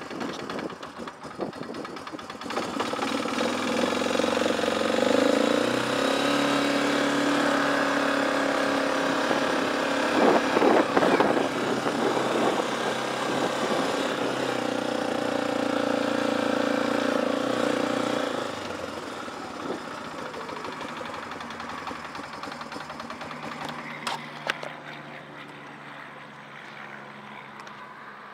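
2004 Arctic Cat 400 ATV's single-cylinder four-stroke engine running on choke, holding a raised, steady speed with a brief louder surge about ten seconds in, then quieter and lower for the last ten seconds. The carburettor needs cleaning: it does not idle reliably without the choke.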